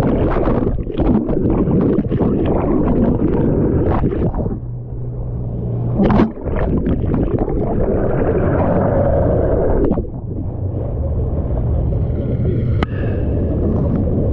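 Boat engine running with a steady low rumble under heavy wind buffeting on the microphone and rushing, splashing water, with a loud thump about six seconds in.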